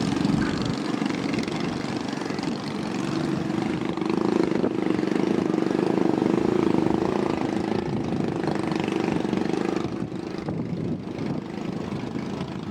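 An engine running steadily, growing louder about four seconds in and easing off again near the end.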